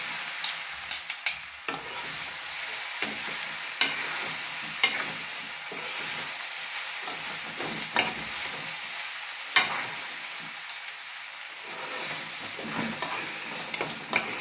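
Egg fried rice sizzling steadily in a steel wok while metal utensils stir and toss it, with sharp clinks of metal striking the pan every second or two.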